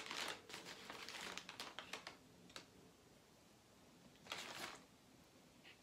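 Paper food wrapper crinkling faintly as food is handled, in a cluster of rustles over the first two seconds and a shorter one about four seconds in.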